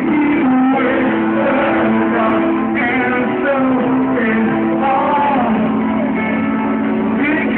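Live rock band playing over a stadium PA, heard from within the crowd on a phone microphone: electric guitars with held notes and singing.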